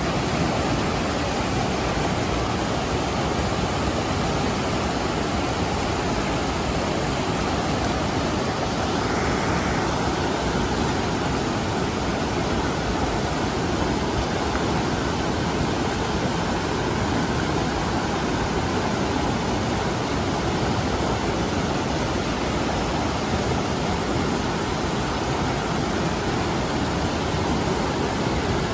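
Fast mountain river rushing through rapids over boulders: a steady, unbroken whitewater rush.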